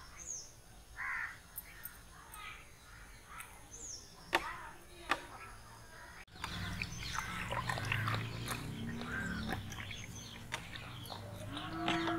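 Quiet outdoor background with birds calling in short chirps and a couple of sharp clicks. About halfway through it changes abruptly to a louder, steady low hum with scattered ticks.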